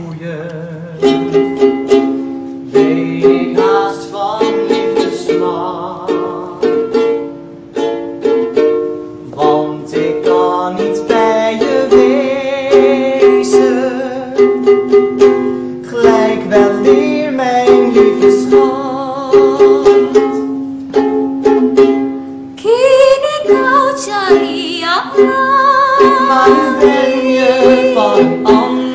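Ukulele strummed in a steady rhythm, accompanying a woman singing a slow song. The music dips briefly about 22 seconds in, then her voice swells with vibrato.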